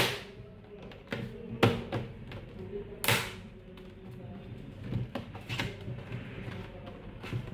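Plastic back-cover parts of an all-in-one PC being pressed and snapped into place by hand. A series of sharp clicks and knocks, irregularly spaced, with the loudest about three seconds in.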